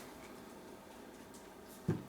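Quiet room tone with one brief, dull low thump near the end.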